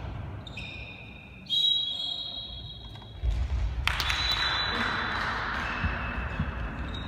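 Court shoes squeaking on the sports-hall floor as handball players run and cut, several high squeals overlapping, with a single thud about four seconds in.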